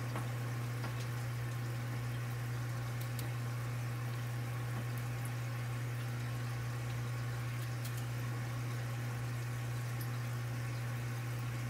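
A steady low hum over an even hiss, unchanging throughout, with a few faint clicks.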